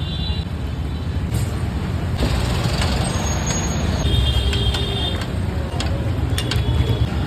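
Road traffic noise: vehicle engines running steadily, with a couple of short high-pitched tones from horns or brakes.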